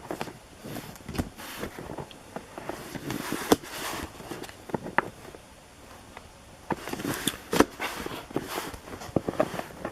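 Baseball card packs and cards being handled: wrapper crinkling and rustling with irregular sharp clicks and taps as cards are flicked and set down.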